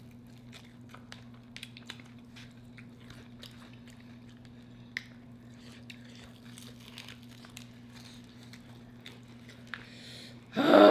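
Close-up chewing and biting into sauce-coated fried chicken, with many faint short clicks and smacks over a steady low hum. Near the end a person's voice is heard briefly and loudly.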